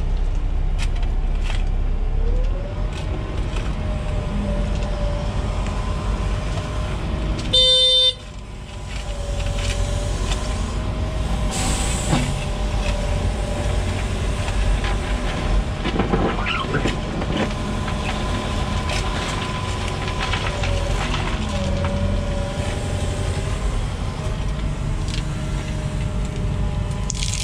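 Excavator diesel engine and hydraulics working steadily during backfilling, with a whine that rises and falls in pitch as the hydraulics load. About eight seconds in, a short horn blast sounds.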